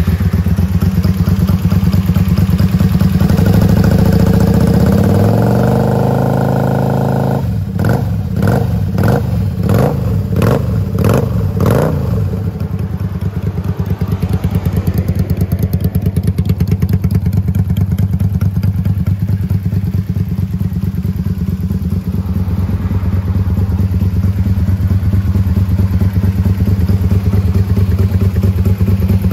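Honda Magna 250 (MC29) V-twin running through an aftermarket muffler, just after starting. The revs rise and are held for a few seconds, then the throttle is blipped repeatedly in quick succession before the engine settles into a steady idle.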